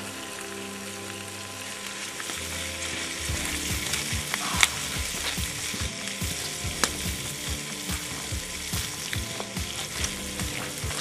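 Food sizzling in a frying pan on a campfire grill, with irregular crackles and a few sharp pops.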